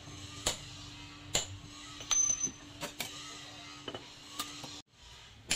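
Hand hammer striking a steel punch held in tongs, driving it into a red-hot piece of rebar on a post anvil to punch the eye of a small claw hammer: a series of sharp metallic strikes, roughly one a second.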